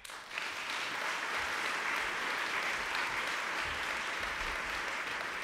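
Audience applauding in a large hall: a steady clapping starting right away and fading slightly near the end.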